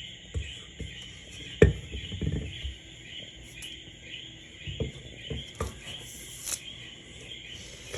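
Scattered knocks and thumps from working a stiff cookie dough out of a bowl and flattening it by hand, the loudest about one and a half seconds in. Under them runs a steady high chirring.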